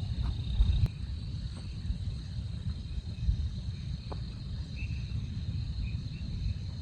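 Wind buffeting the microphone, a gusty low rumble, with a faint steady high insect trill behind it.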